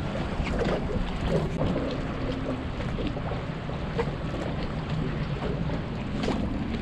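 Wind buffeting the microphone over water lapping against a small boat's hull and the bridge pilings, with a few faint clicks.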